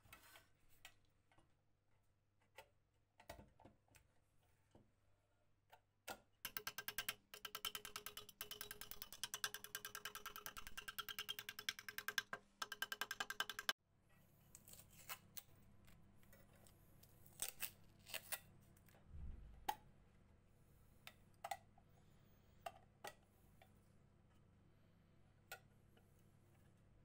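Small flashlight parts handled and fitted by hand: scattered light clicks and taps, with a several-second run of fast, dense clicking in the middle that stops abruptly, over a faint low hum.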